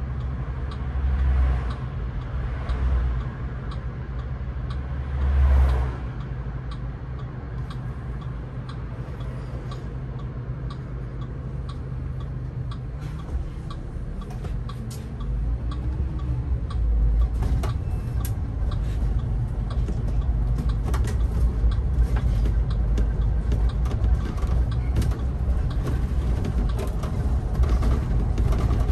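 Engine of a Solaris Urbino 18 articulated city bus running, with a turn-signal relay ticking steadily over it. There are two brief louder swells in the first six seconds, and from about halfway through the engine grows louder as it works harder.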